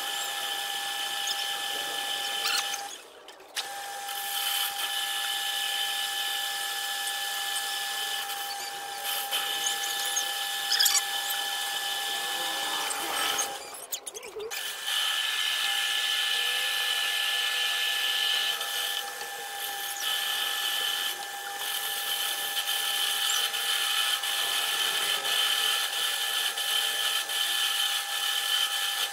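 Metal lathe running with a steady whine while a cutting tool turns down a metal workpiece held in its chuck. The sound drops out briefly twice, about three seconds in and again around fourteen seconds in.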